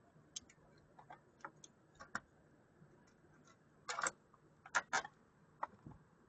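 Faint, irregular clicks and taps of hand tools working on a spring-loaded door hinge, with a quick cluster of sharper clicks about four to five seconds in.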